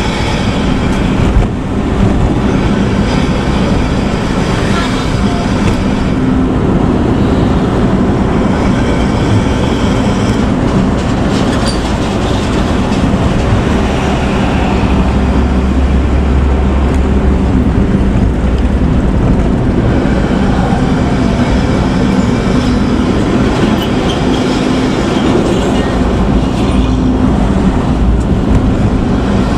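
Front-engined intercity bus on the move, its exhaust giving a steady, deep snoring rumble (knalpot ngorok), heavier for a few seconds in the middle.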